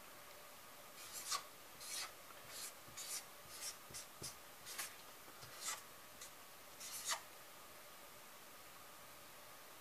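Felt-tip marker scratching and squeaking on paper as a word is written, in about fifteen short strokes that start about a second in and stop about seven seconds in.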